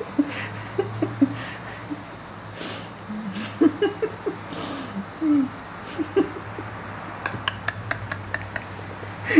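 Scattered short, soft vocal sounds, with a quick run of light taps and clicks near the end as a cat leaps and paws at a waving stalk of foxtail grass.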